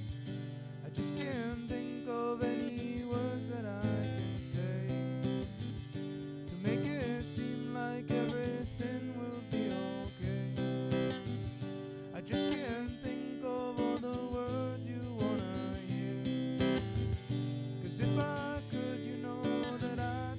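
Background music: strummed acoustic guitar with a melody line over it.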